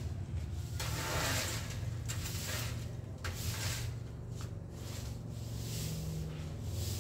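Broom swishing across outdoor floor tiles in a few strokes, over a steady low rumble.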